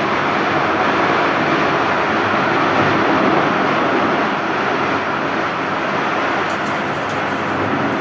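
Tornado-strength wind blowing hard: a loud, steady rushing noise.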